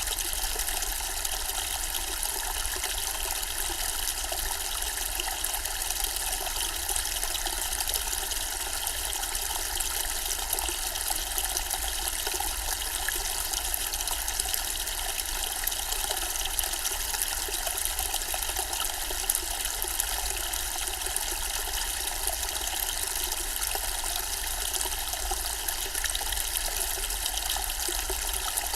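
Zen-style water fountain, its water trickling and splashing in a steady, unbroken stream.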